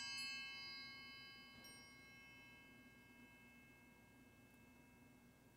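Altar bell ringing at the elevation of the chalice after the consecration. Its high ringing fades away toward near silence, with a faint second ring about one and a half seconds in.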